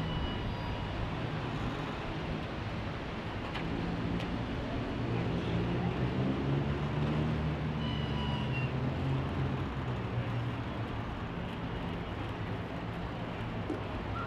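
Steady city traffic noise, with a low engine drone that swells about halfway through and fades again as a vehicle passes. Two short high squeals, one near the start and one about two-thirds through.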